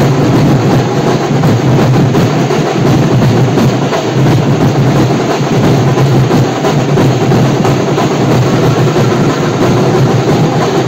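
Loud, drum-heavy music, unbroken throughout.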